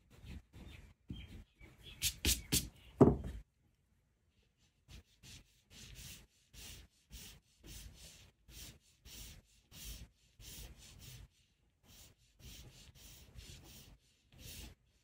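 Graphite pencil sketching on paper: short scratchy strokes, about two a second. About two to three seconds in there is a brief louder clatter and a thump.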